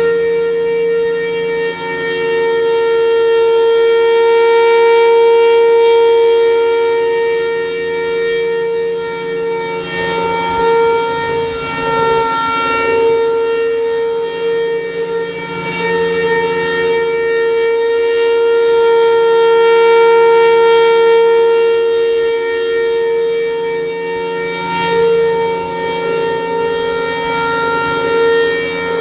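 Federal Signal Thunderbolt outdoor warning siren sounding a loud steady tone at one constant pitch during a test. The sound swells and fades about every fifteen seconds as the rotating horn sweeps toward and away from the listener.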